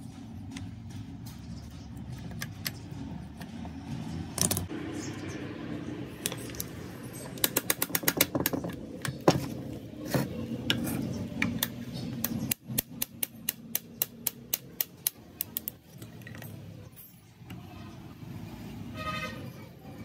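Metal parts and tools clinking and tapping during lathe repair work, over a steady low hum. A quick flurry of taps comes about eight seconds in, and later a regular run of about three or four taps a second.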